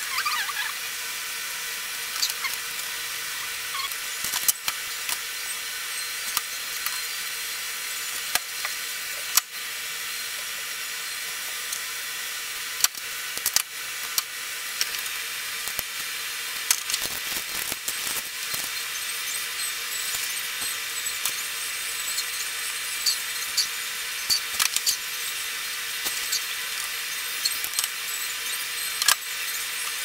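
Scattered small clicks and rustles of wires being handled and a wire stripper being worked, over a steady hiss with a faint steady tone.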